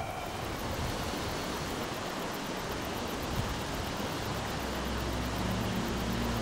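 A steady, even rushing noise with no distinct events. About four seconds in, a low steady hum fades in beneath it.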